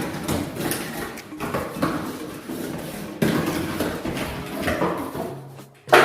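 Rustling and clattering of packaging and hard plastic vacuum-cleaner parts being handled, with a sharp knock near the end.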